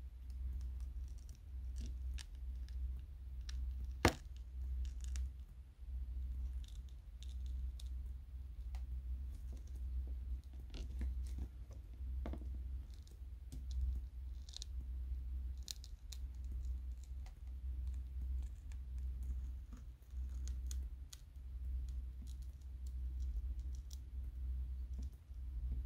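Plastic opening picks and nylon spudgers clicking and scraping along the glued screen edge of an iPhone 13 as the display is pried up from the frame. Irregular small clicks and scratches, with one sharp click about four seconds in, over a low rumble.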